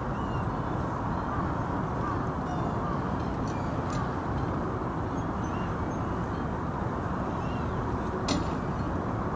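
Steady low outdoor rumble with no distinct engine note, with a few faint short bird chirps and a single sharp click near the end.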